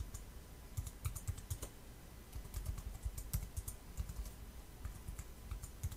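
Typing on a computer keyboard: a run of irregular key clicks as a name is typed in.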